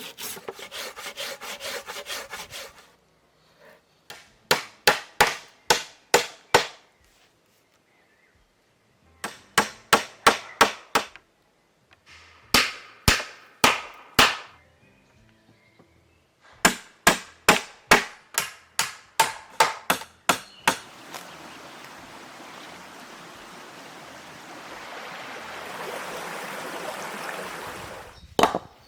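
Hand tools working wood. About three seconds of quick, even hand-saw strokes are followed by several runs of sharp blows on wood, a few to a dozen strikes per run. Near the end comes a steady rubbing noise lasting several seconds.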